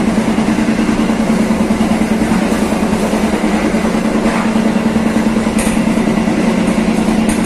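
Passenger train running along the track, heard from the rear car: a steady rumble of wheels on rail with a constant low hum, and a few sharp clicks about halfway through and near the end.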